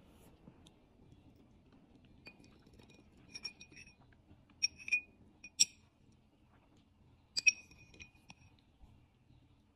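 Metal spoon clinking against a small ceramic bowl as it scoops caramel custard. About half a dozen short, ringing clinks: a cluster between three and six seconds in and a close pair about seven and a half seconds in.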